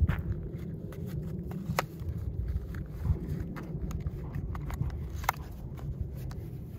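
Steady low outdoor rumble, with a few short sharp cracks or clicks; the clearest come about two seconds in and again about five seconds in.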